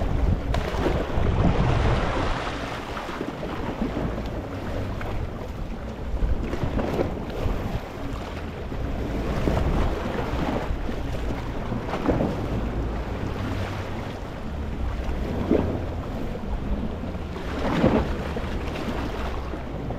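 Small sea waves lapping and washing over a rocky shore: a steady wash broken by splashes every few seconds, the sharpest near the end. Low wind rumble on the microphone runs under it.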